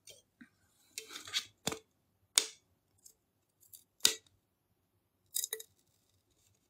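A scatter of short, sharp clicks and taps close to the microphone, about six in all, some in quick pairs, with near silence between them.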